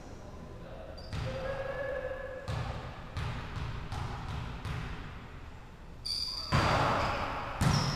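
Volleyball play on a wooden gym floor: irregular thuds of the ball being hit and bouncing, with short high sneaker squeaks, echoing in a large hall. A louder flurry of hits and squeaks comes near the end.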